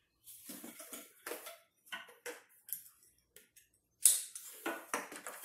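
Handling noise as a booster seat's strap is fed around a wooden chair back: scattered rustling and light clicks of the strap and its plastic fittings, with a sharp knock about four seconds in.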